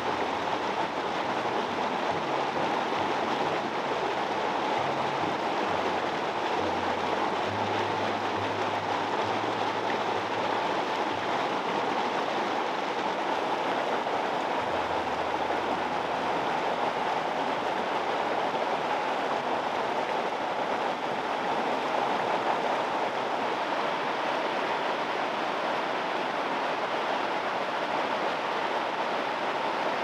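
Mountain creek rushing over rocks and small drops: a steady, even whitewater rush.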